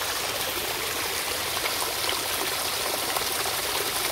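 Hot spring water rushing and splashing steadily over rocks.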